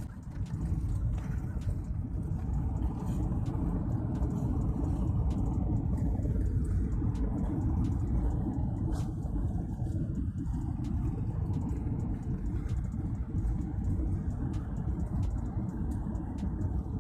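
Boeing 737 jet rumbling as it rolls down the runway. The noise is steady and low, with a hollow dip in tone that sweeps down and back up about halfway through, as the aircraft passes.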